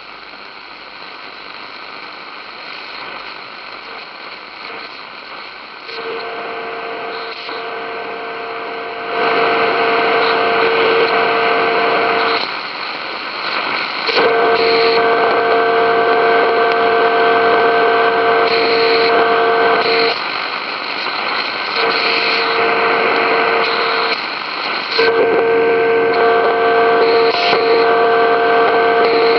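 C.Crane shortwave radio receiver playing an unidentified signal: a steady hiss of static with a droning tone that switches on about six seconds in and then cuts out and returns several times, each stretch lasting a few seconds.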